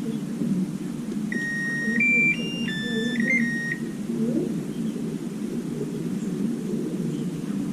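An electronic beeper plays a short tune of about six stepped tones, starting a little after a second in and lasting under three seconds, over a steady low hum.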